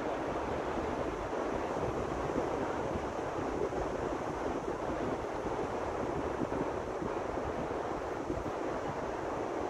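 Steady wind rumbling on the microphone over the even wash of surf.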